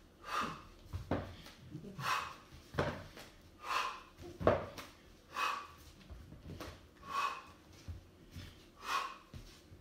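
Sharp, forceful exhales, about one a second, timed with each step of a bodyweight floor-flow exercise. Among them are a few soft thuds of hands, feet and a foam yoga block landing on a wooden floor.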